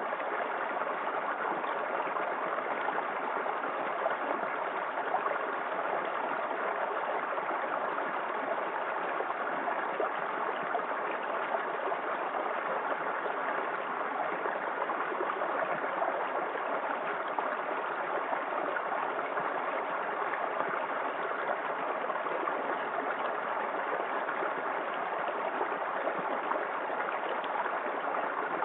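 Small waterfall in a creek: water pouring over the drop with a steady, even rush.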